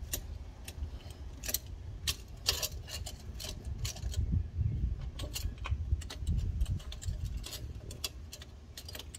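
Irregular metallic clicks and clinks of hands working parts into place in a Cummins ISX engine bay, over a low, uneven rumble.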